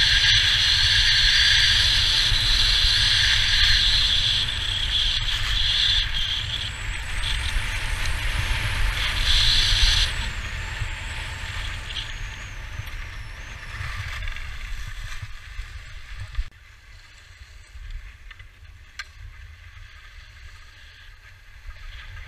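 Skis sliding and scraping over packed snow, with wind buffeting the microphone. The scraping hiss is loudest for the first ten seconds, and the low wind rumble cuts off abruptly about sixteen seconds in, leaving a quieter hiss of skis.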